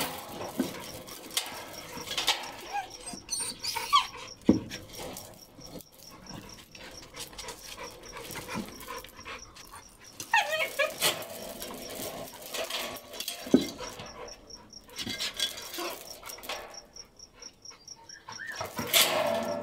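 Two dogs meeting for the first time, whimpering and panting as they sniff and tussle, with a few sharp clicks. The louder whining comes in two spells, about halfway through and just before the end.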